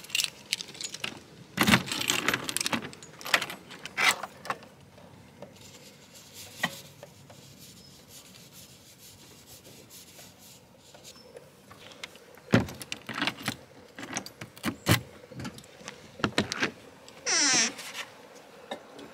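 Keys jangling and clicking as a caravan's drawbar box is unlocked and opened, with scattered knocks and clatter of things being handled inside while the gas bottle valve is turned on. There is a quieter stretch in the middle and a short rustle near the end.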